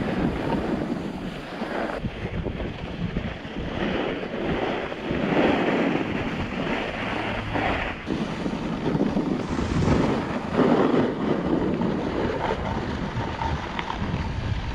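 Wind rushing over the microphone, with the scrape and hiss of a snowboard's edges carving through snow, swelling and easing from turn to turn.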